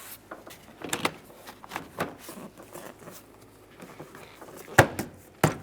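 Plastic interior door panel being fitted onto a pickup truck door: light scraping and clicking as it is worked into place, with two sharp knocks near the end as it is pushed home.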